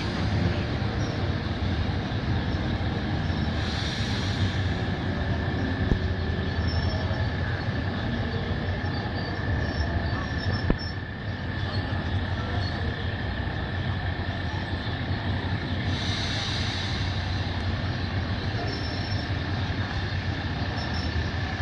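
Passenger train crossing a steel truss railway bridge: a steady low rumble of the carriages, with a thin, steady high-pitched tone held over it for most of the crossing.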